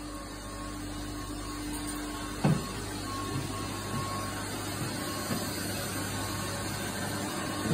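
Steady hum and whir of running machinery in a building's plant room, with a faint on-off whine above it. One sharp knock about two and a half seconds in.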